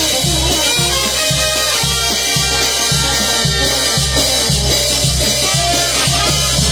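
Peruvian banda show playing live without vocals: horns and percussion over a steady beat of about two bass thumps a second.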